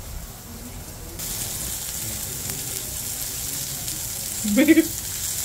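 Pupusa frying on a hot griddle: a steady sizzling hiss starts suddenly about a second in and keeps on. A short vocal sound is heard near the end.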